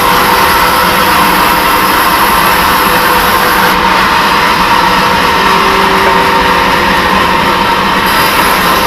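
Band sawmill running loudly and steadily as it saws a teak log. A thin high whine drops out about four seconds in and comes back near the end.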